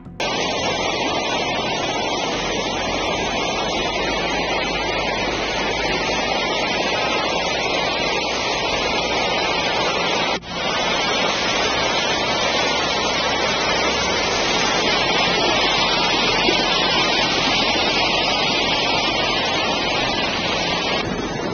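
Loud, steady rushing of floodwater, with a brief drop in level about halfway through.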